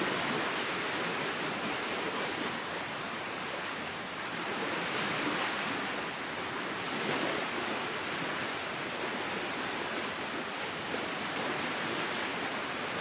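Steady rush of surf on a beach, swelling and easing gently every few seconds.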